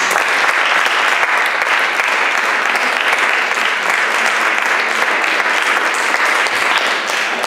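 Audience applauding, many hands clapping at once at a steady level.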